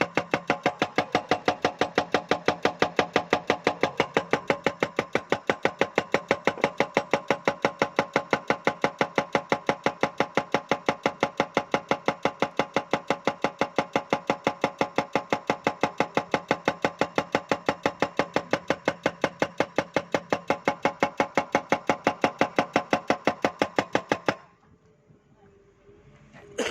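Excavator-mounted hydraulic breaker hammering rock: a steady, rapid train of blows, several a second, over the machine's engine running. The hammering stops abruptly a couple of seconds before the end.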